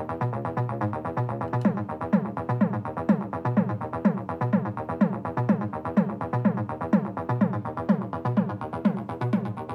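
Synth bass line pulsing in short repeated notes. About a second and a half in, an electronic kick drum comes in at about two hits a second, and the bass ducks under each kick: side-chain ducking, done with an inverted kick envelope on the bass VCA, that keeps the kick and bass from muddying each other.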